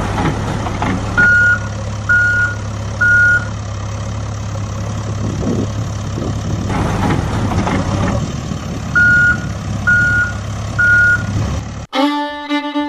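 A heavy machine's engine running with a steady low drone, with a reversing alarm beeping three times about a second apart, then three times again; rough gravel rattles come in between. Violin music cuts in near the end.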